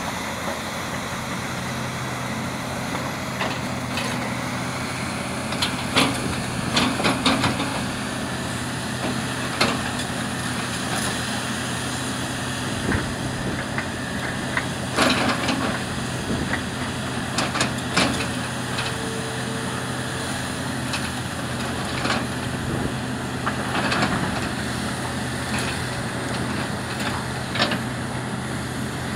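Hitachi Zaxis 470 LCH excavator's diesel engine running steadily under load while its ripper tooth tears through quarry rock. Sharp cracks and clatters of breaking and tumbling stone come in a quick cluster about six to seven seconds in, then scattered every few seconds.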